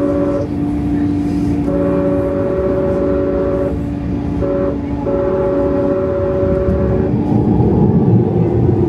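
Train horn sounded in the long, long, short, long grade-crossing pattern, heard over the running noise of a Siemens S70 light rail car. The low rumble of the car grows louder near the end.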